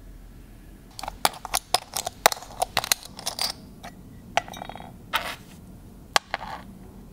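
Small enamelled metal calendar number plates clinking and clicking against each other as they are handled and gathered into a stack: a quick run of sharp clinks for a couple of seconds, then a few separate clicks of small metal parts set down.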